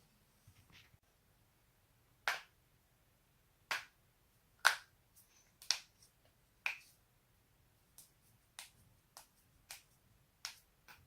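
Human joints cracking: a series of about a dozen sharp, single pops at uneven intervals, the loudest about five seconds in.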